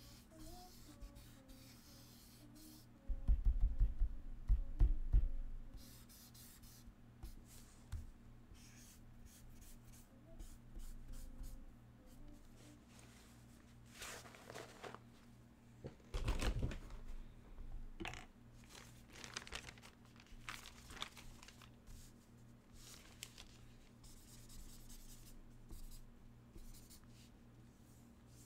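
Felt-tip marker strokes scratching across paper in irregular runs, with a few dull thumps about three to five seconds in and again around sixteen seconds. A steady low electrical hum runs underneath.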